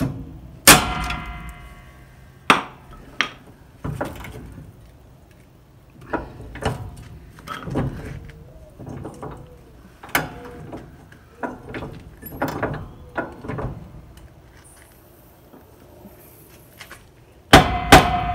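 Metal knocks and clanks from a high-lift jack as its handle and release latch are worked, with two loud ringing clangs, one about a second in and another near the end. The release is sticking and does not let the jack down.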